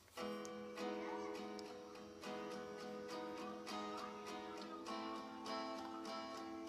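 Acoustic guitar strumming chords that ring on, starting suddenly a fraction of a second in and changing chord a few times.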